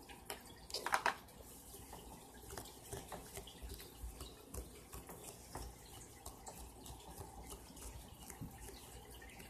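Homemade glitter slime being worked by hand, giving a string of faint wet clicks and squelches, with a louder cluster of clicks about a second in.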